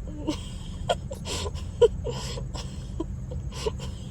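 Steady low rumble of a car idling in a drive-thru queue, with short wordless voice sounds and hissy bursts scattered over it.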